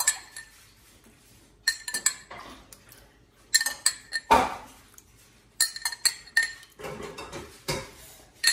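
Spoon and dishes clinking as tablespoons of water are spooned into sauce in a frying pan: a dozen or so sharp, irregular clinks and knocks, the loudest about four seconds in.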